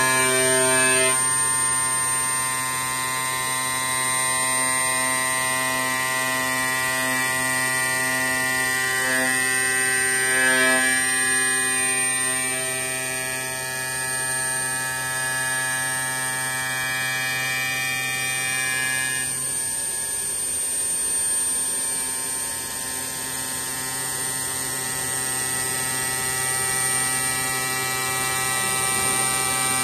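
CNC glass milling machine's spindle running while its tool grinds along the edge of an oval cutout in a glass sheet under coolant spray: a steady, many-toned electric hum and whine. The tone changes about twenty seconds in.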